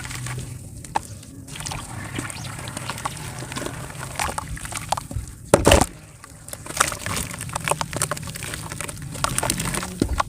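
Dry multani mitti (Fuller's earth clay) crumbling and breaking apart in water, with dense crackling and sloshing. A louder, brief splash-like burst comes about five and a half seconds in.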